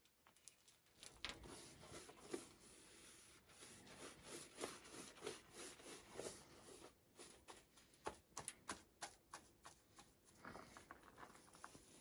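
Faint, irregular scratches and taps of a paintbrush being dabbed and dragged over a rough rendered wall, busiest in a quick flurry of strokes past the middle.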